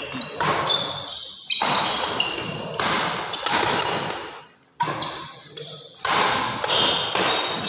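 Badminton rally: the shuttlecock is struck by rackets about five times, roughly every second or so, and each sharp hit rings on in a large hall. Short high squeaks, likely court shoes on the wooden floor, come between the hits.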